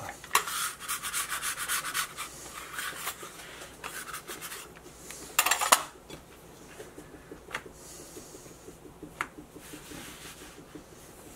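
Hands rubbing and pressing biscuit dough on a floured granite countertop: quick scratchy rubbing strokes for the first four seconds or so, one louder brief scrape about five and a half seconds in, then a few light taps.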